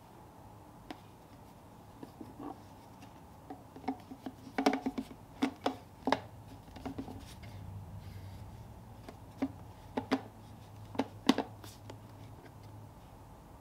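Clear plastic food-storage containers and lids being handled and stacked, giving light plastic-on-plastic clicks and taps. The clicks come in a cluster about five seconds in and another around ten to eleven seconds in.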